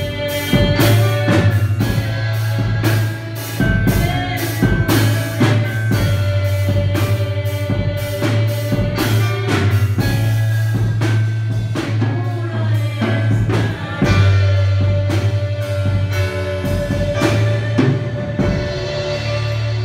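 Live worship song: voices singing over an electronic keyboard with a steady drum beat. The beat drops out near the end as the music tapers.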